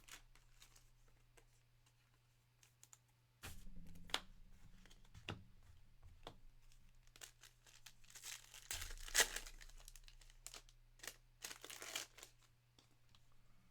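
Trading card pack wrapper being torn and crinkled while cards are handled: scattered quiet crinkles and clicks, sparse at first and busiest a little past the middle.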